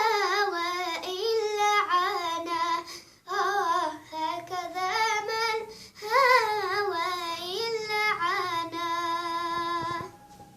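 A young girl singing a Yemeni song solo without accompaniment, in a high voice with wavering, ornamented phrases, pausing for breath twice and stopping shortly before the end.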